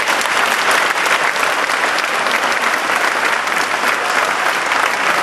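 An audience applauding steadily, many hands clapping in a dense, even patter.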